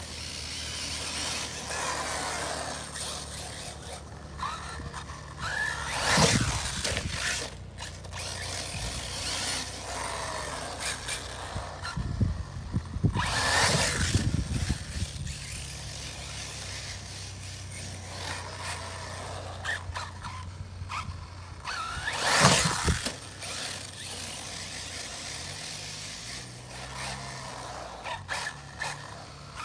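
Arrma Typhon 6S 1/8-scale electric RC buggy running on a 4S LiPo: its brushless motor whines up and down as it accelerates and its tyres tear through grass and over concrete. It comes through loudest in three surges, about six, thirteen and twenty-two seconds in.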